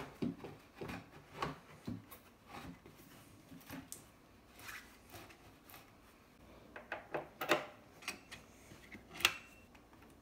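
Handling sounds of an amplifier chassis being slid back into its carpeted cabinet: soft knocks and scrapes at first, then a few sharp clicks in the second half.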